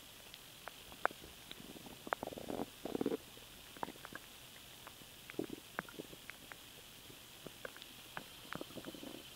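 Human stomach gurgling from swallowed air: scattered small pops and clicks with short gurgles. The loudest gurgles come about two to three seconds in, another around five and a half seconds, and a softer run near the end.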